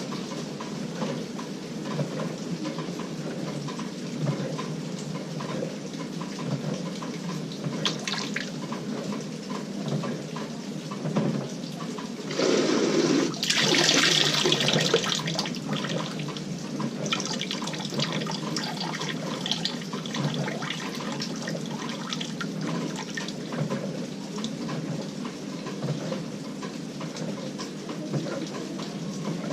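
Water swishing and splashing in the tub of an LG 18 kg top-load washing machine running a delicate cycle, with a louder surge of water about halfway through.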